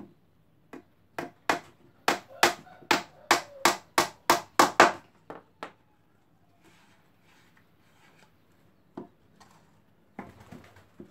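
Hammer striking a small plywood speaker box, a quick run of about fourteen sharp blows at roughly three a second that starts about a second in and stops a little past halfway. Near the end, a few light knocks and rubs as the wooden box is handled and moved.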